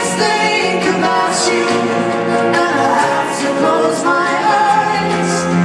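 Live concert music: several voices singing together in harmony, with little or no instrumental backing.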